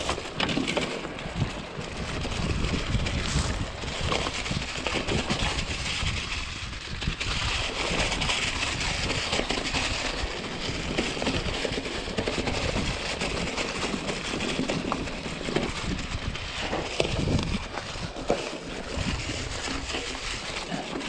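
Mountain bike riding down a rough dirt singletrack: a steady rush of tyres rolling over dirt and rock, with scattered knocks and rattles from the bike over bumps.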